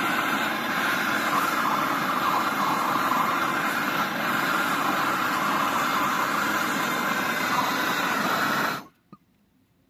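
Dual-tube gas torch burning with a loud, steady hiss, its flame on a thick iron angle being brazed with brass rod. The hiss stops abruptly near the end, followed by a single faint click.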